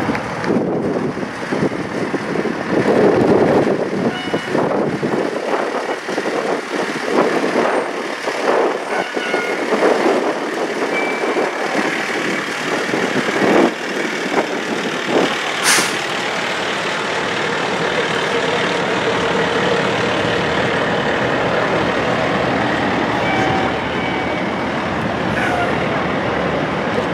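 Fire truck diesel engines running, with a brief sharp air-brake hiss about sixteen seconds in.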